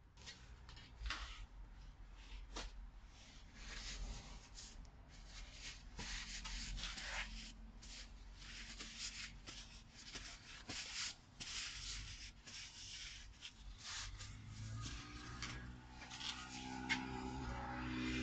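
Faint, irregular rubbing and scraping of hand work. About 15 seconds in, a low motor hum starts, rises a little in pitch and settles into a steady run.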